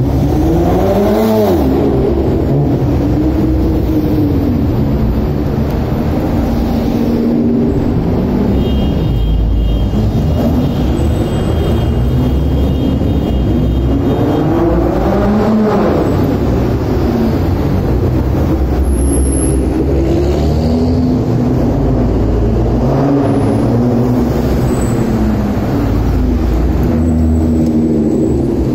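Several Nissan R35 GT-Rs, each with a twin-turbo V6 engine, pulling away and passing one after another. Each engine revs up and falls back several times as it drives by.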